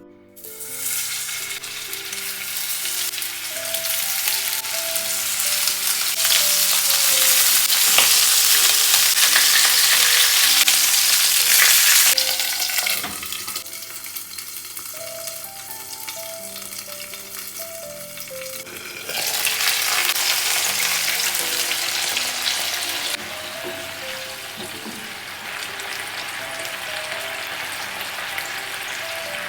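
Ground-meat-stuffed green peppers sizzling in oil in a frying pan. The sizzle builds over the first few seconds and stays loud, drops back about twelve seconds in, swells again for a few seconds at about two-thirds of the way, then settles to a steady sizzle.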